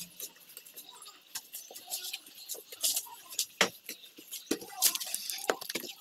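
Soapy hands scrubbing a scooter's plastic body panels: irregular wet rubbing and squeaking with scattered sharp clicks and knocks, the loudest a few seconds in.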